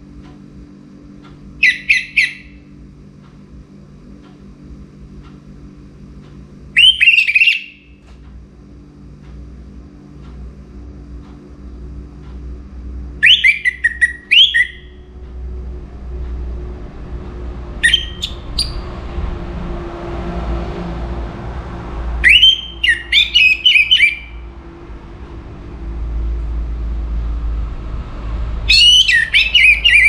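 Orange-headed thrush singing: six short, loud phrases of quick whistled notes, each a second or two long, repeated every few seconds. Under them a low background rumble grows louder in the second half.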